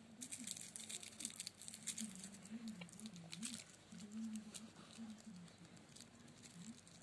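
A dozing domestic cat's faint crackly snuffling and rustling close to the microphone, over a low wavering hum.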